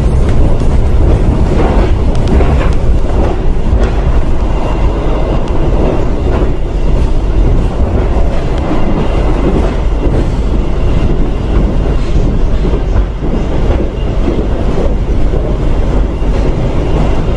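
Loud steady running noise of a passenger train coach heard from inside, wheels clattering and rumbling over the track as the train runs through a station.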